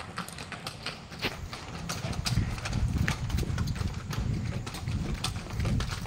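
Hooves of a male water buffalo clopping on a paved lane as it pulls a small cart, with sharp irregular clicks and rattles, and a low rumble building about two seconds in.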